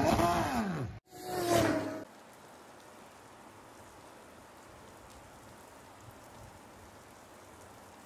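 An electronic logo sting of whooshes and falling, gliding tones for about two seconds. It gives way to steady rain falling on wet tarmac, a soft even hiss.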